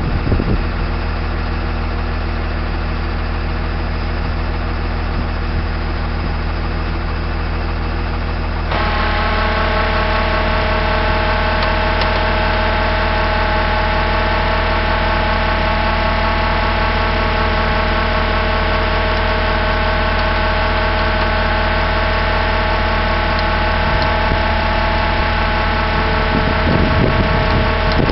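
Tow truck's engine running steadily during a winch recovery. About nine seconds in, the sound steps up and gets louder, with a higher steady whine added, as the drive for the winch is worked.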